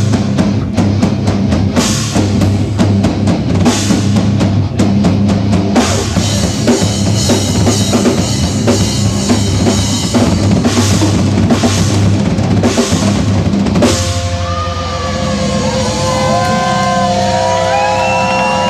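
Live rock band playing, with a full drum kit of bass drum, snare and cymbals. About 14 seconds in the drums stop as the song ends, leaving held, wavering tones ringing on.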